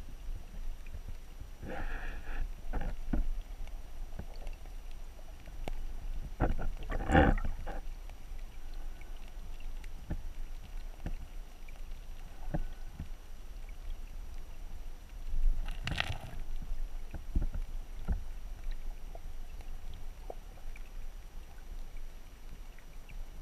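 Stream water heard through a submerged camera's housing: a muffled, steady low rumble of current with scattered clicks and knocks, and three louder swells of rushing noise about 2, 7 and 16 seconds in.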